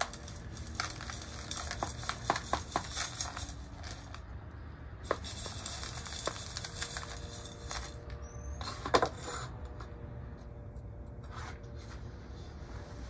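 Gritty bonsai soil being scooped and poured into a small plastic pot, a rattling hiss in two bursts, with light clicks and one sharper knock about nine seconds in.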